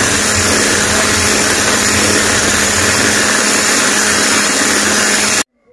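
Electric hand mixer running steadily, its beaters whipping eggs and sugar into a fluffy cake batter, then switched off abruptly near the end.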